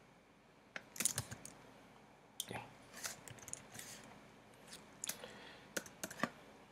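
Scattered computer keyboard key presses, a dozen or so short sharp clicks at an irregular pace, some in quick runs of two or three.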